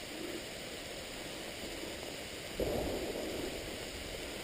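Steady hiss of falling rain, with a brief louder rustle about two and a half seconds in.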